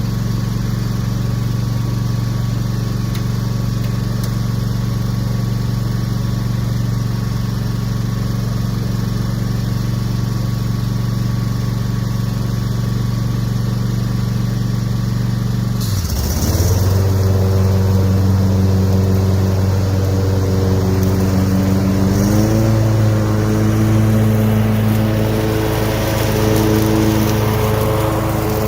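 Cub Cadet Pro X 654 stand-on mower's engine running steadily. About halfway through, its note dips and settles lower while a broad rushing hiss comes in. A few seconds later the engine steps up to a higher, busier note.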